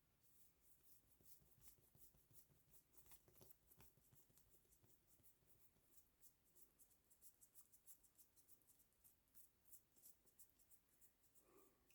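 Faint brushing strokes of fingertips rubbing across facial skin during a massage, quick and repeated, several a second. A brief soft lower sound comes near the end.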